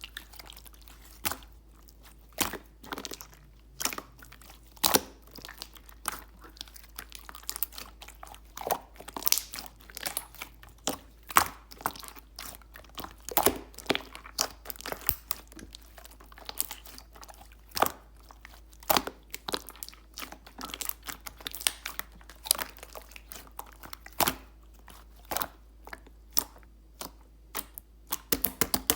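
Clear slime being squeezed, poked and stretched by hand, giving irregular sharp clicks and pops of trapped air, several a second at times.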